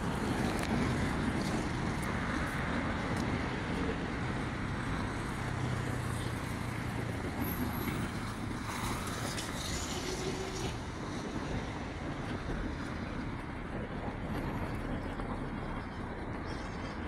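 Road traffic: cars and motorcycles passing on a busy street, a steady mix of engine and tyre noise, a little louder in the first few seconds.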